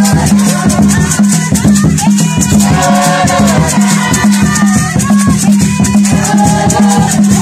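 Group of worshippers singing in phrases over rattles shaken in a fast, even beat, about five strokes a second.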